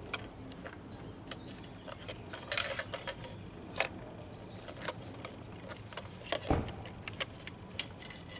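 Scattered clicks, taps and small rattles of parts of a fuel filter assembly being handled and worked loose by hand, with one heavier knock about six and a half seconds in.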